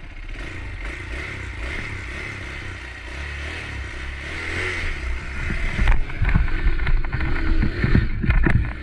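Motorcycle riding over a rough trail, its engine running under a steady rumble. From about six seconds in it gets louder and rougher, with irregular low thumps and a few sharp knocks.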